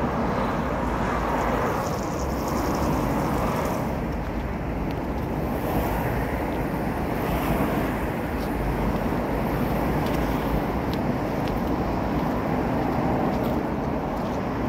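Steady outdoor city noise: a low rumble of traffic mixed with wind on the microphone.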